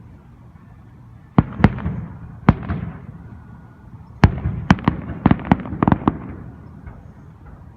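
Fireworks going off: three sharp bangs about a second and a half in, then a quick run of bangs about four seconds in.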